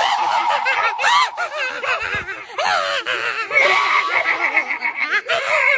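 Two young people shrieking and laughing in exaggerated high-pitched voices, with wavering, quavering wails rather than words.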